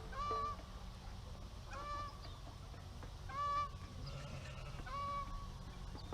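Farm poultry giving short honking calls, four in a row about a second and a half apart, each call brief and evenly pitched.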